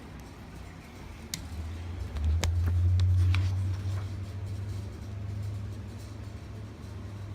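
Handling of an electronic lockset: several sharp clicks and taps, clustered between one and four seconds in, over a low rumble that swells in the middle.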